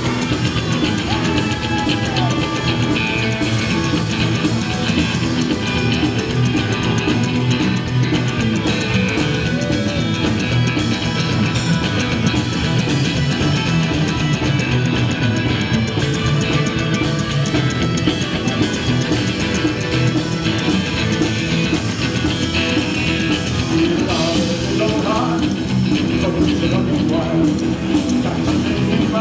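Live rockabilly band playing loudly: upright bass, electric guitars and a drum kit, with a singer at the microphone.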